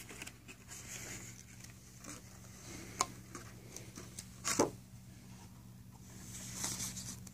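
Handling noise from a handheld camera moved over a pile of trading cards: soft rubbing and rustling, a sharp click about three seconds in and a louder thump a moment later, over a faint steady low hum.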